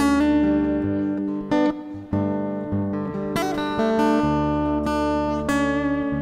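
Strummed acoustic guitar chords, an instrumental stretch of a live song with no singing, briefly dropping back about a second and a half in.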